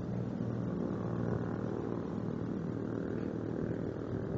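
Radio-controlled model boat's motor running steadily, a motor hum whose pitch wavers a little.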